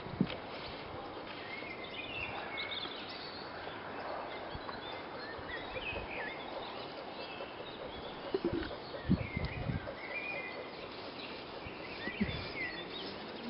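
Small birds chirping over a steady outdoor background hiss. A few dull low thumps about eight to ten seconds in, and one more near the end.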